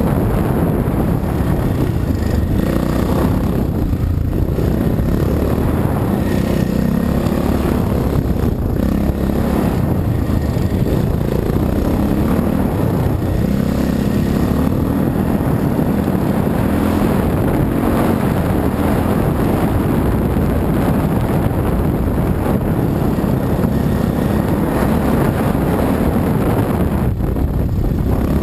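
Dirt bike engine running hard along a trail, its note rising and falling with the throttle.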